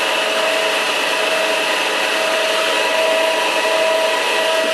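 Arrow Matsuda cam-operated semi-automatic screw machine lathe running, a steady whir with a constant whine in it.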